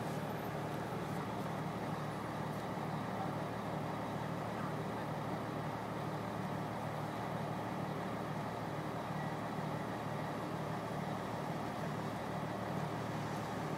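Crane engine running steadily, an even low drone.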